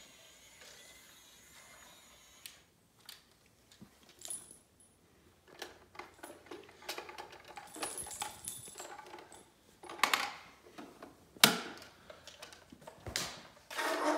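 Plastic toy accessories and their packaging being handled: scattered clicks, rattles and rustling, with a few sharper knocks, the loudest a little past the middle.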